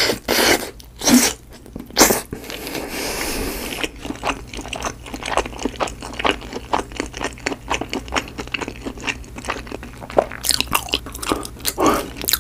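Close-miked eating of a baked avocado half filled with egg and cheese, bitten skin and all, the skin baked well. A few loud bites in the first two seconds, then a long stretch of steady chewing, then more loud bites near the end.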